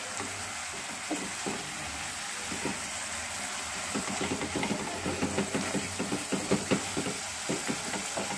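Thick tomato-chilli chutney sizzling in a non-stick pan with a steady hiss, while a silicone spatula stirs and scrapes through it in short strokes that come more often from about halfway on.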